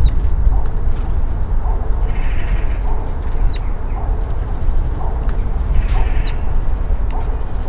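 Birds calling with short chirps, over a steady low rumble.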